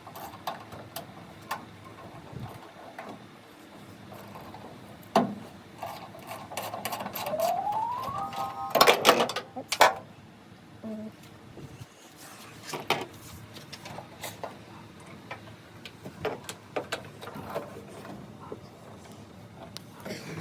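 A small electric motor briefly spins up, rising in pitch and then holding steady, amid scattered clicks and knocks of parts being handled, with a loud cluster of knocks shortly after.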